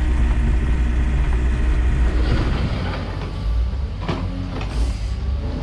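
Vehicle engine running with a steady low drone. A little over two seconds in it turns rougher and noisier, with a few sharp knocks.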